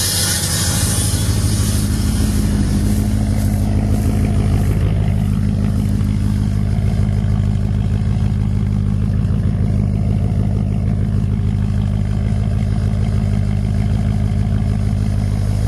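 A car engine running steadily at idle, its low hum holding an even pitch throughout.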